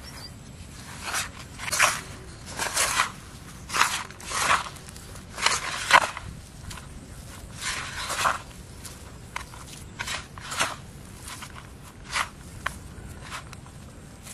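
Hand mixing and squeezing a crumbly bait mix in an aluminium plate: irregular crunching, scraping strokes of the fingers against the metal. There are about a dozen, loudest around the middle and thinning out toward the end.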